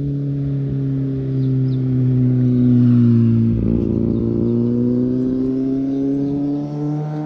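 A motorcycle engine passing close by. Its note drops as the bike slows into the bend, with a rough patch about three and a half seconds in, then rises again as it accelerates away.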